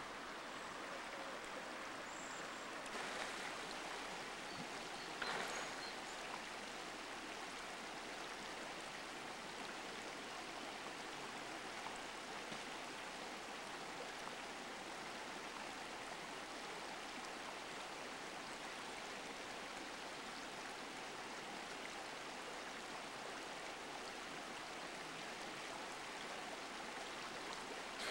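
Creek water running over a shallow stony riffle, a steady even rush, with two brief faint clicks about three and five seconds in.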